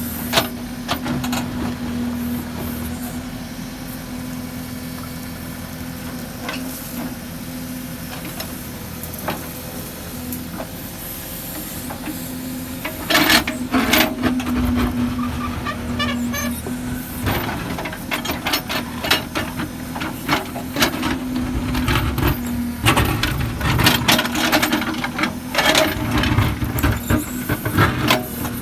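Case 770 FX backhoe loader's diesel engine running steadily, with frequent clanks and knocks starting about halfway through as the machine works.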